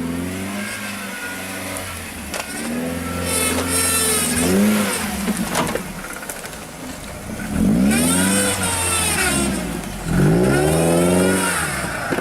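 Off-road 4x4's engine revving hard in about four surges, its pitch rising and falling with each. There is a sharp knock about halfway through.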